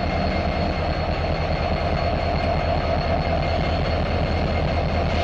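Norfolk Southern SD70ACe diesel-electric locomotive, with its EMD 710 V16 two-stroke engine, running as it pulls a train slowly past. It makes a steady, even low rumble.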